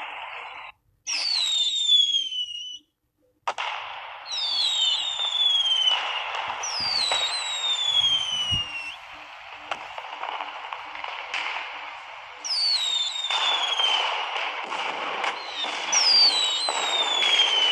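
Fireworks sound effect: steady crackling with a series of whistles that each fall in pitch over a second or two, and a few sharp cracks. It cuts out briefly twice near the start.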